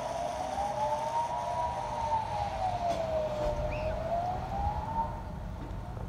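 Kockum Sonics Delta 4 electronic civil-defence siren sounding the Swiss General Alarm signal during a test: a single tone slowly rising and falling, about one rise and fall every three and a half seconds. It stops about five seconds in.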